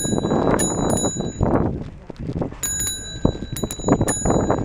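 Bicycle bell rung several times, mostly in quick pairs ("ting ting"), over a steady rushing noise of the ride.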